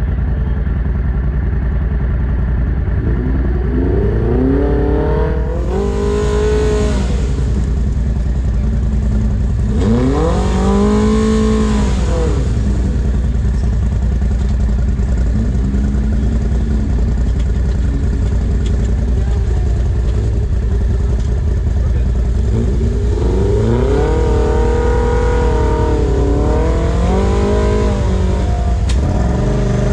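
Side-by-side UTV engine running, revving up and back down in four surges over a steady low drone: a long one about a quarter of the way in, another soon after, a short one near the middle, and a longer run of revs toward the end.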